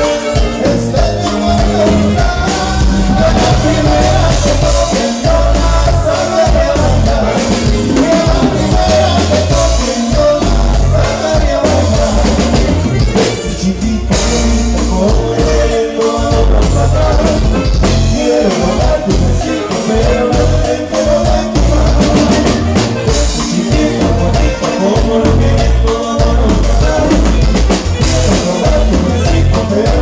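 Loud band music: a singer over a drum kit with a steady dance beat.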